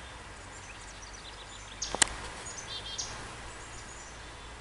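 Outdoor ambience: a steady faint background hiss with a few short, high bird chirps about two to three seconds in, and a single sharp click at about two seconds.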